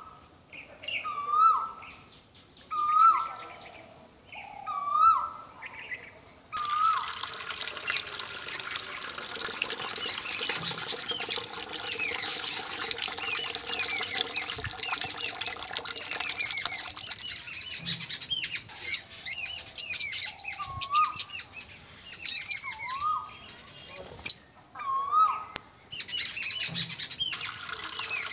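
Birds calling: a single short call repeated about every two seconds, then from about six seconds in a dense chorus of many small birds chirping.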